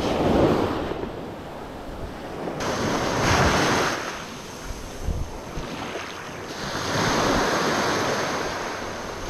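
Small Gulf surf breaking and washing up a sandy beach, the hiss swelling and fading three times, about every four seconds, with wind buffeting the microphone.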